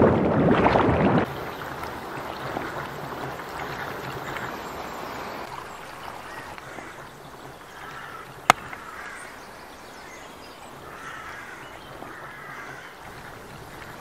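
Loud rushing water for about the first second, then a steady hush of river water with faint bird chirps and one sharp click about eight seconds in.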